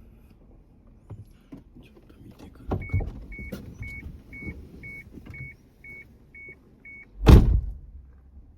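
A vehicle beeping in an even series of short warning beeps, about two a second, with some clattering handling noises, then a loud thump of a door or tailgate shutting about seven seconds in.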